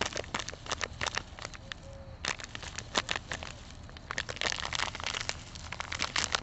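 Plastic bag of dry castable refractory crinkling and crackling as it is tipped and shaken, with the powder pouring into a metal coffee can. The crinkling is busiest in the second half.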